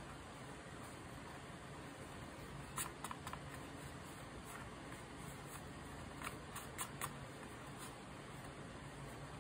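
Stiff white paper being folded and creased by hand: quiet handling with a few short, sharp paper crackles about three seconds in and again around six to seven seconds, over a faint steady hum.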